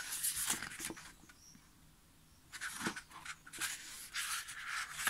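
Pages of a paper photobook being turned by hand: paper rustling and flapping in two spells with a short lull between, and a light tap in the second spell.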